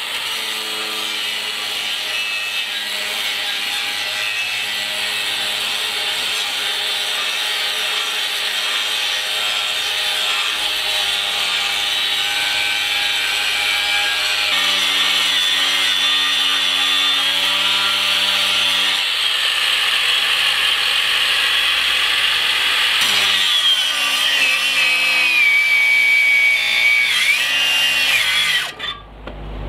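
Makita XAG12 36V brushless 7-inch cordless angle grinder grinding rusty steel with an abrasive disc: a steady high whine with a grinding rasp. Its pitch drops and wavers in the last few seconds.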